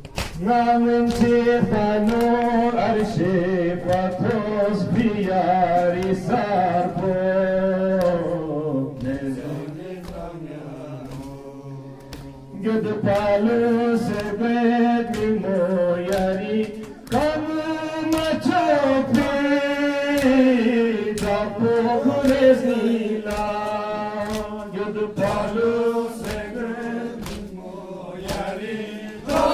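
Men chanting a Balti noha, a Muharram lament, in unison, with a steady beat of hands striking chests (matam) in time. The chant drops to a softer line for a few seconds in the middle, then comes back at full strength.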